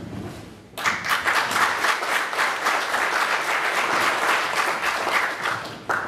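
Audience applauding, starting about a second in and stopping just before the end.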